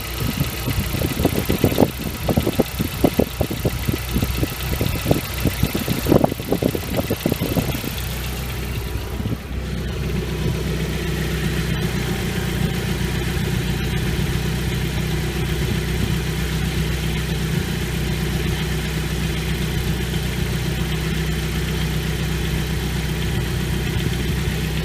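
Nissan CA18DET 1.8-litre turbo four-cylinder idling cold, with an irregular knocking clatter for about the first eight seconds. The clatter then stops and the engine runs on at a steady idle. This is the cold-engine noise that the owner suspects may come from the hydraulic lifters.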